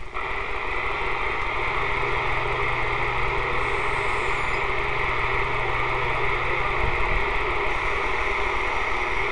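CB radio receiver on channel 6 giving out steady static hiss between transmissions, with a low hum underneath that cuts out about seven seconds in.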